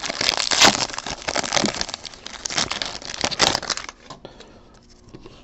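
Foil wrapper of a Panini Prizm baseball card pack crinkling and tearing as it is ripped open by hand. The crinkling stops about four seconds in.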